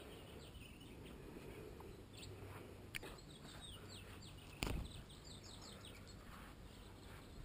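A small caught bird chirping: runs of quick, faint, high chirps, each falling in pitch, coming several to a second through the middle of the stretch. A sharp click about three seconds in and a dull thump a little later.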